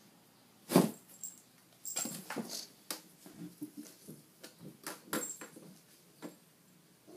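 Cardboard cat house knocked and scraped as a cat pounces and paws at a wand toy against it: one loud thump about a second in, then a quick run of knocks and scuffs, and a last knock near the end.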